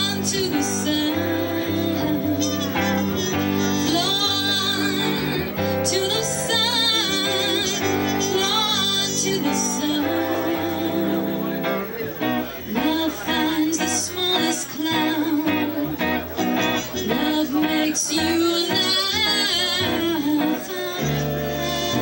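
A live band playing: electric guitar, upright bass and trumpet, with a singer's voice.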